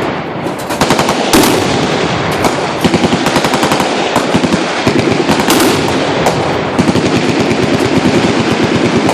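Several machine guns firing full-auto at once: a dense, continuous rattle of overlapping shots, with a few louder, heavier bangs standing out.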